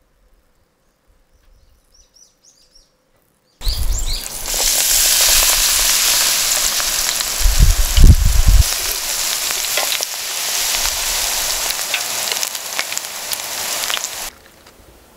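Batter-coated acacia flowers deep-frying in hot oil in a Delki electric fryer: a loud sizzle that starts suddenly about three and a half seconds in and goes on steadily, like rain, with a low thump near the middle, then cuts off shortly before the end.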